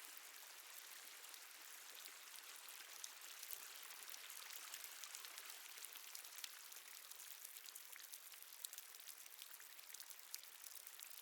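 Water dripping in a cave: a faint, steady hiss of running water with many small drip ticks, which come more often after a few seconds.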